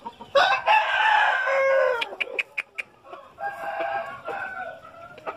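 An Asil gamecock crowing: one long crow starting about half a second in and ending on a falling note, followed by a quick run of sharp clicks and a second, fainter crow.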